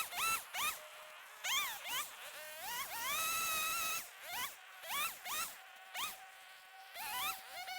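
A power saw's motor speeding up in a series of short trigger pulls, each a quick rising whine, with one longer held run about three seconds in.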